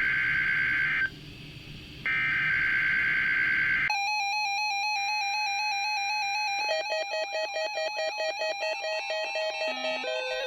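NOAA Weather Radio SAME digital header bursts: a buzzy, warbling data screech, one burst ending about a second in and a second burst of about two seconds following a short gap, signalling the start of the Required Weekly Test alert. About four seconds in, an electronic melody of stepped beeping notes starts and keeps playing.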